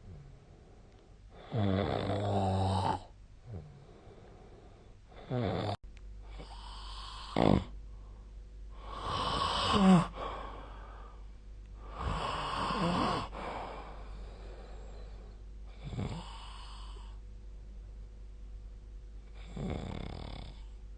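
A person snoring in sleep: about seven loud, rasping snores every two to four seconds, with quieter breathing between them. About six seconds in the background changes abruptly and a faint steady hum joins.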